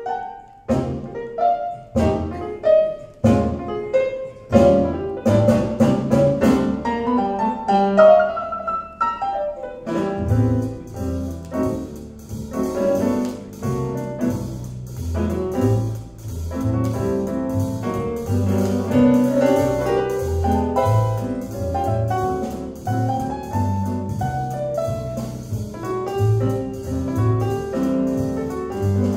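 Jazz piano trio recording played back over hi-fi loudspeakers in a demonstration room. Piano chords start the piece alone, and about ten seconds in the double bass and drums join with a walking bass line and steady cymbal ticks.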